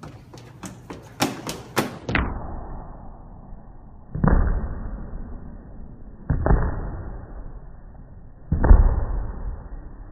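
A quick run of sharp clicks, then three heavy, muffled thuds about two seconds apart, each fading out slowly.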